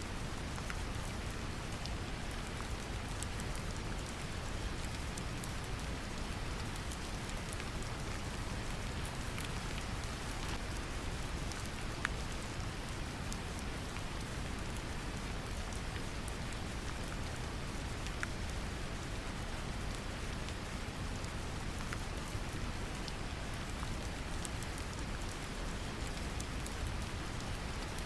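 Steady brown noise, a deep even hiss strongest in the bass, mixed with gentle rain whose scattered drop ticks patter on top. One drop tick about halfway through stands out a little louder.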